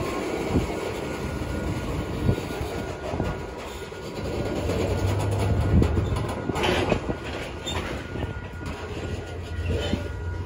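Freight train of covered hopper cars rolling past: a steady rumble of the cars with wheels clicking over the rail joints, and a louder clatter about six and a half seconds in.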